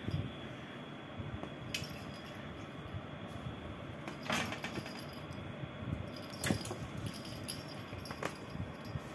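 A cat scuffling on a hard floor as it rolls and kicks at a toy, with several short metallic clinks, the loudest about four and six and a half seconds in.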